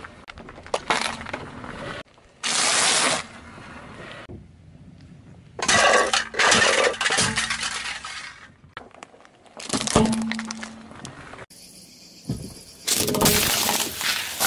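A car tyre rolling over and crushing small objects, heard as about five separate bursts of crackling and crunching that start and stop abruptly. Near the end, the tyre squashes a scatter of water beads (Orbeez).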